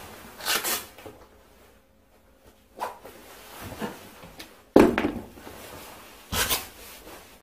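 Rustling and scuffing of clothing and a shoe as a person pulls a shoe on or off, in a few separate bursts. A sharp knock comes a little before five seconds in, the loudest sound here.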